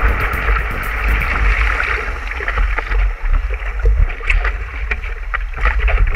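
Water rushing under and around a stand-up paddleboard riding a wave, with wind rumbling on the board-mounted camera's microphone. From about halfway through, short splashes and slaps of water against the board come through.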